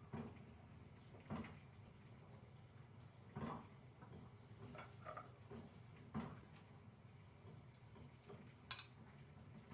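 Quiet kitchen handling sounds: about half a dozen soft knocks and clinks of dishes and kitchenware being set down and moved, spaced a second or two apart, over a low steady hum.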